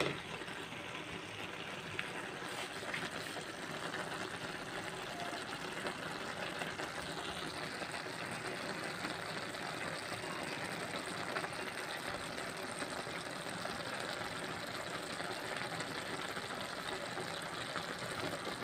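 Steady low background noise, an even hum and hiss with no distinct events.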